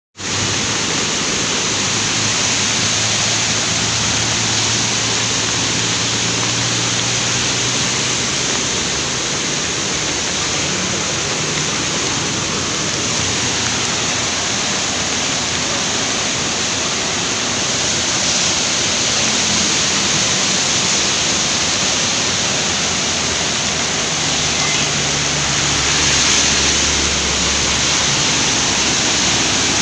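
Muddy river in flood rushing through rapids: a steady, loud noise of fast, churning water.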